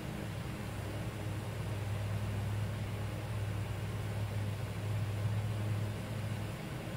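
Steady low hum over an even background hiss, easing a little near the end.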